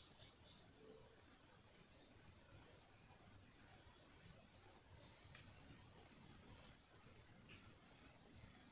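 A steady, high-pitched insect chorus, cricket-like, shrilling on and on with a slight pulsing in level.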